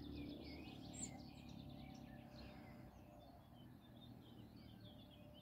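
Faint birdsong: many short chirping notes scattered throughout, over a low steady background rumble.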